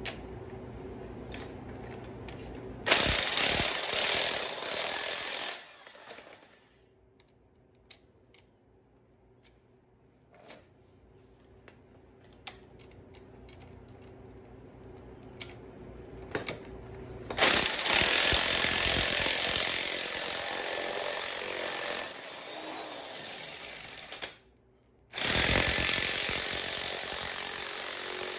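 Power tool driving the threaded rod of a strut spring compressor, running in three bursts with a rapid hammering rattle: a short one about three seconds in, a long one from about halfway, and another near the end, with a few light clicks in the pauses.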